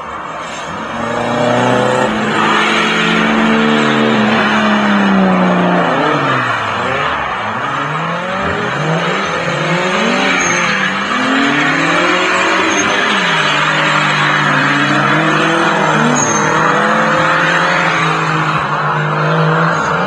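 Nissan 240SX (S13) drift car sliding on wet asphalt, its engine revving up and down again and again as the throttle is worked, over a continuous hiss of spinning, sliding tyres. It grows louder over the first two seconds, and the engine note holds steadier for a while in the second half.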